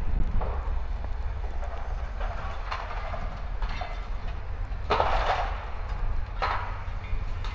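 Hitachi 210 excavator working: a steady low engine rumble with about six short bursts of scraping and clatter, the loudest about five seconds in.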